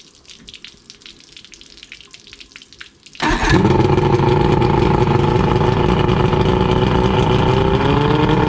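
A 1988 Johnson 90 hp V4 two-stroke outboard running loud and steady at a high idle, coming in suddenly about three seconds in after a few seconds of faint crackling.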